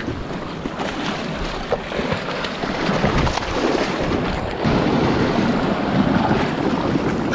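Sea swell washing over shoreline rocks, with wind buffeting the microphone. The wash grows louder about three seconds in and again near the five-second mark.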